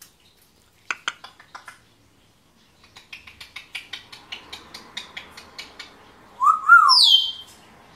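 African grey parrot making clicking sounds: a short run about a second in, then a longer run at about six clicks a second. Near the end comes a loud whistle, a low note that rises and falls followed by a high falling note.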